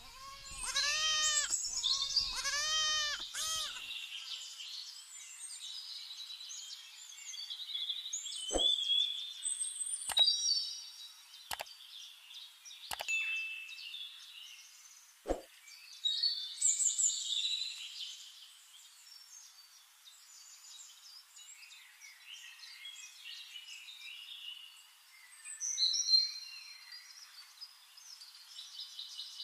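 Small birds chirping and singing, with several sharp clicks between about 8 and 15 seconds in. The loudest part comes in the first few seconds: a quick string of short rising-and-falling calls.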